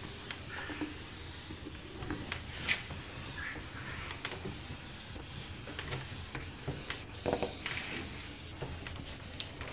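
Whiteboard being wiped clean with a duster: faint rubbing strokes and a few soft knocks. Over it a steady, high-pitched cricket trill.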